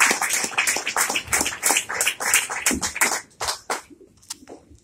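Audience applauding, the clapping thinning to a few scattered claps and dying away about three to four seconds in.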